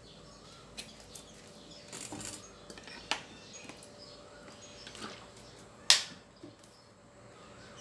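Scattered sharp clicks and light knocks of kitchen utensils and seasoning containers being handled, the loudest a single sharp click about six seconds in.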